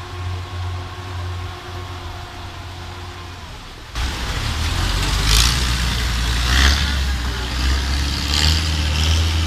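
A motor engine running with a steady low hum. About four seconds in, the sound jumps abruptly to a louder, deeper engine drone with a rushing noise over it.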